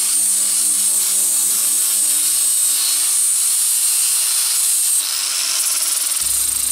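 Steady hiss of the wooden cup being sanded, a continuous abrasive rubbing on wood. The sound changes a little about five seconds in, and a low hum joins near the end.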